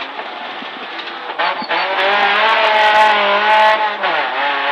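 Rally car engine heard from inside the cabin: quiet and off the throttle for about the first second, then accelerating hard with a strong, steady note, with a brief drop in revs shortly before the end, as at a gear change.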